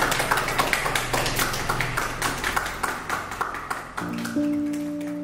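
A small group clapping their hands, the claps thinning and fading over about four seconds. Near the end, music with held notes comes in.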